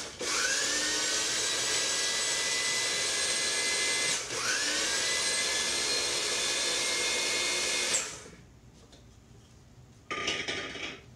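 Small electric food grinder running, grinding saltine crackers very fine. The motor is run in pulses: it cuts out briefly at the start and again about four seconds in, spins back up with a rising whine each time, and stops about eight seconds in. A short clatter follows near the end.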